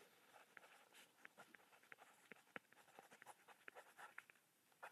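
Faint pencil strokes on a drawing pad: short, irregular scratches and small taps as a figure on the page is written over.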